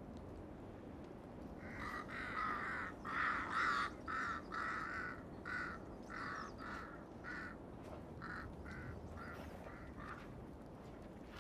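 A corvid cawing: a run of about a dozen harsh caws starting about two seconds in. The first few are longer and loudest; the rest grow shorter and fainter.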